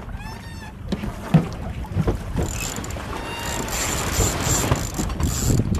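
Wind buffeting the microphone and water along the hull of a Pearson 26 sailboat coming through a tack, with scattered knocks and rattles from the sheets and winch as the genoa is trimmed. The sharpest knock comes about a second and a half in.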